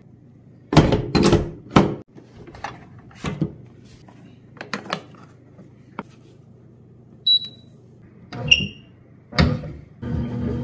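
Metal bread pan clunking and clicking as it is seated in a Panasonic bread machine, then two short electronic beeps from the control-panel buttons and a thump. Near the end the machine's motor starts with a steady hum.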